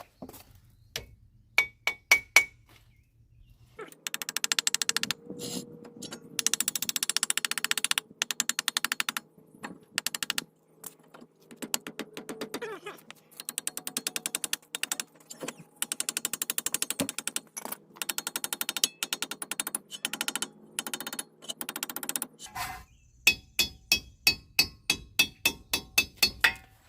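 Rapid metallic clicking of a wrench running a nut down on a truck's wheel hub, in long runs with short pauses. Near the end come slower, separate clicks, about three a second.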